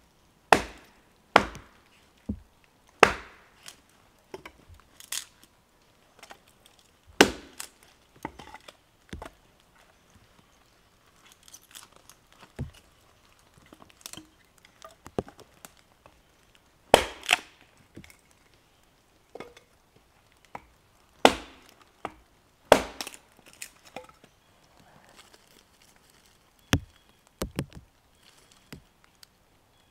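Hatchet splitting dry wood into kindling: a dozen or so sharp chopping strikes at irregular intervals, with lighter knocks of split pieces between them.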